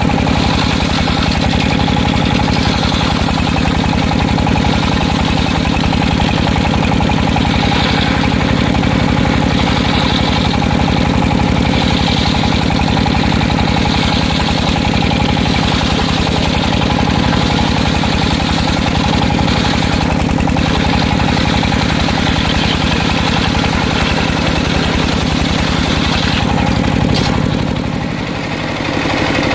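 Engine of a circular-saw sawmill running steadily, with a brief drop in level near the end.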